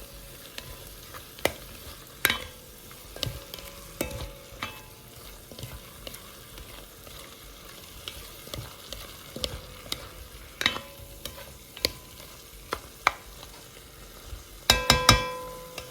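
Pork and onions sizzling in a frying pan while being stirred, with a utensil clicking against the pan every second or so. Near the end comes a quick run of louder metallic clanks that ring briefly.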